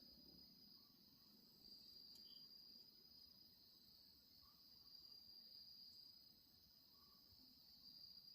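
Faint, steady high-pitched insect chirring, a continuous trill that neither starts nor stops.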